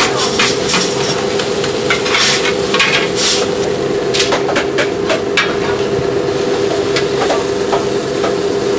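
Vegetable gopchang (pork intestines with glass noodles and cabbage) sizzling on a flat iron griddle while metal spatulas scrape and clack against the plate, tossing and scooping the food. A steady hum runs underneath.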